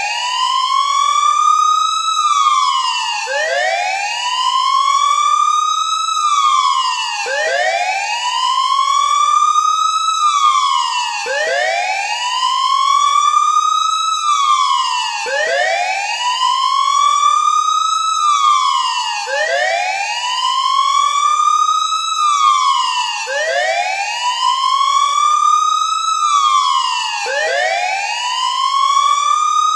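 Wailing siren used as the earthquake drill alarm, rising and falling in pitch about every four seconds, one slow up-and-down sweep after another.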